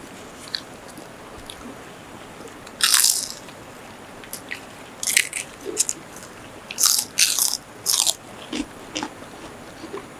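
Crisp fried food being bitten and chewed: a string of loud crunches starting about three seconds in, with small crackles between them.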